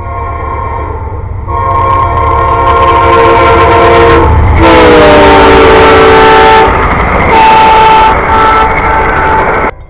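Locomotive air horn sounding a chord of several notes in a series of blasts, over the low rumble of a passing train. About halfway through, the whole chord drops in pitch as the locomotive goes by.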